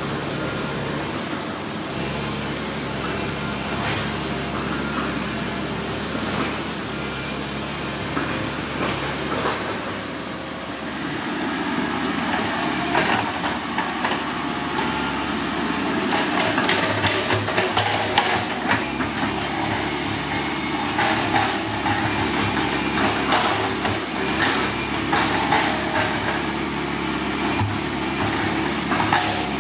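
Diesel engine running steadily as a six-wheel dump truck drives off. From about a third of the way in, a Komatsu PC130 hydraulic excavator's diesel engine is heard working, with repeated clanks and scrapes of its bucket digging into soil and stones.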